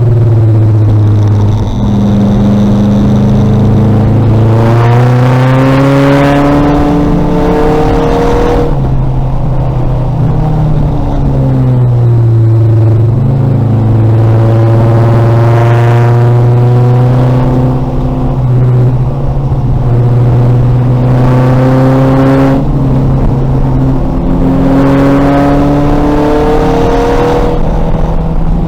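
2000 VW Golf race car's engine at racing speed, rising in pitch several times as it accelerates and falling away between the rises as it lifts off and changes gear.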